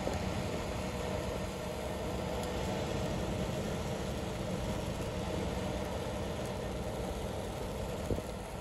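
Steady engine and tyre noise heard from inside a moving vehicle driving on a rain-wet road.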